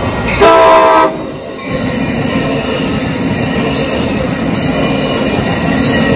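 Amtrak Pacific Surfliner passenger train sounding its horn in one short blast about half a second in, the loudest sound here. After that comes the steady rolling noise of its bilevel cars running past over the crossing, wheels on rail.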